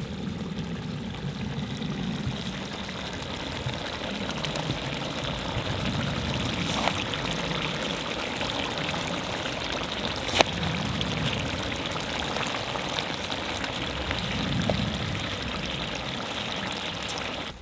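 Soaked rice being spooned into a kazan of simmering zirvak for plov, the broth bubbling and hissing steadily under the wet rice. A single sharp knock about ten seconds in.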